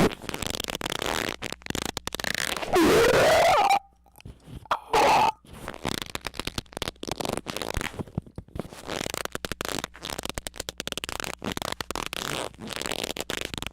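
Squeaking noises chopped into a rapid, stuttering string, with a squeal rising in pitch about three seconds in and a short loud squeak about five seconds in.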